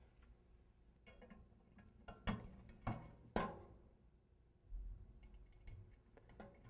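Faint metallic clicks and taps as a new pilot assembly is fitted to a gas water heater's burner and fastened with its screw, with three sharper clicks near the middle.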